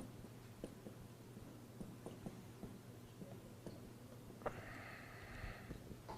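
Near silence: quiet room tone with a low steady hum, a few faint scattered clicks, and a brief faint hiss about four and a half seconds in.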